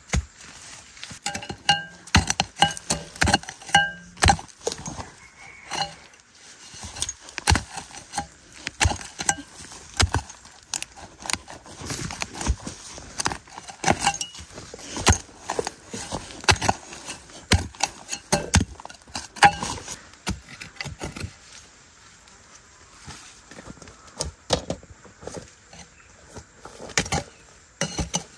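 Hand hoe chopping into soil to dig out cassava roots: repeated, irregular strikes, some with a short metallic clink.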